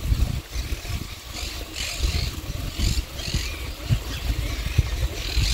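Wind buffeting the microphone as a low rumble, with short scratchy bird calls repeating in the background, starting about a second in.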